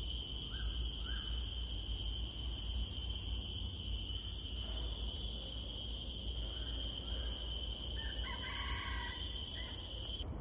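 Tropical forest ambience: a steady, high-pitched insect drone with a few short bird calls over it, two about a second in and a longer run of calls about eight seconds in.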